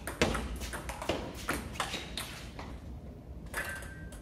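Table tennis rally: the ball clicking off bats and table about three times a second, the loudest hit just after the start, the hits stopping after about two and a half seconds. A short squeak near the end.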